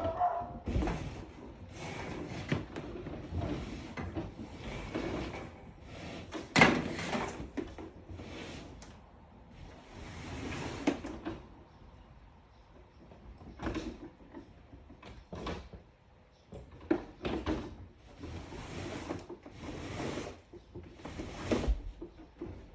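14-2 Romex cable being pulled and worked through a wall: a run of irregular rustling and scraping strokes, each about half a second long, with one louder scrape about six and a half seconds in and a quieter stretch in the middle.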